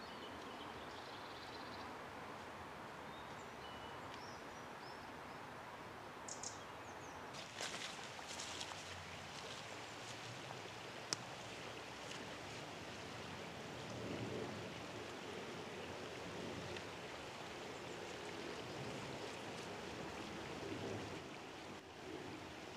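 Woodland ambience: a steady rush of flowing stream water, with a few short bird chirps early on and scattered footsteps and twig snaps on the leaf-litter path, one sharp snap about eleven seconds in.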